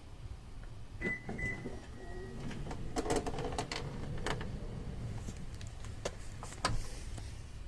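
Power sliding door and deploying universal step of a 40-series Toyota Alphard in operation: a short beep about a second in, then motor whirring with several sharp clicks and knocks. This is the abnormal noise from the step, which the owner suspects comes from a stone caught in it.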